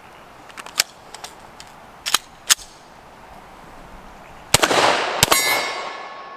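A few sharp metallic clicks and clacks of pistol handling, then two 9mm shots from a Glock 17 about 0.7 s apart, with a long echo. Just after the second shot a steel silhouette target rings and slowly fades.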